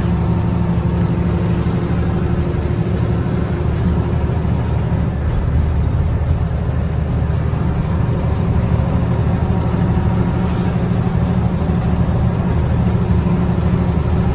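Goods truck's diesel engine running steadily while cruising, heard inside the cab as a loud, even low drone mixed with road noise.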